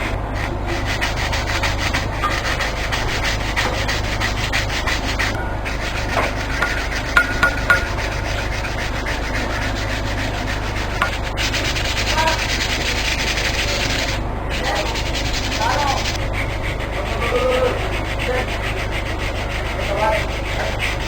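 Wood being sanded with an abrasive, a steady scratchy rubbing, broken off briefly twice.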